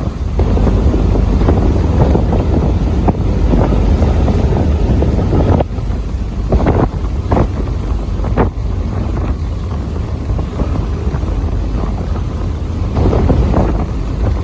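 Strong wind buffeting the microphone: a heavy, continuous low rumble with sharper gusts now and then.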